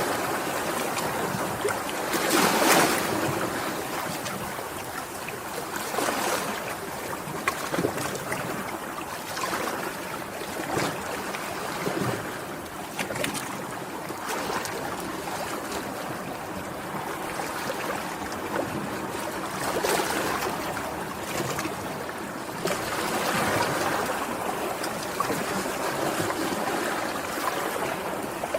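Sea waves washing ashore, a continuous rush that swells and eases, with a larger wave breaking about two to three seconds in and smaller splashes through the rest.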